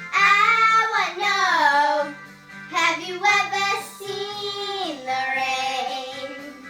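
A young girl singing long, wavering held notes over a quieter accompaniment, in three or four phrases with a short break in the middle.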